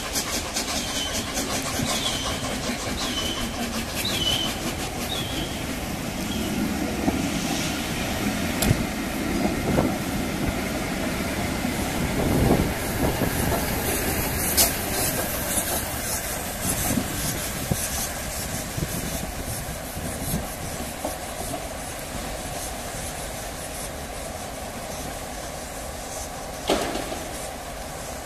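Peppercorn A1 Pacific steam locomotive 60163 Tornado and its coaches rolling past along the platform, the wheels clicking over the rail joints, with steam hissing.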